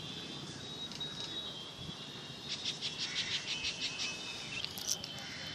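Outdoor insect sound: a steady high whine, with a rapid run of chirps, about seven a second, a little past halfway.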